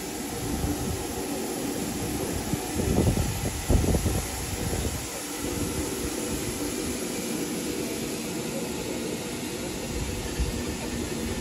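Steady hiss and low rumble from a standing Bulleid Battle of Britain class steam locomotive, 34059 Sir Archibald Sinclair, simmering at the platform, with a couple of louder rumbles a few seconds in.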